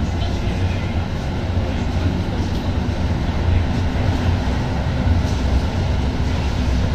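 Konstal 805Na tram running along the track, heard from inside the car: a steady low rumble of the wheels on the rails and the running gear.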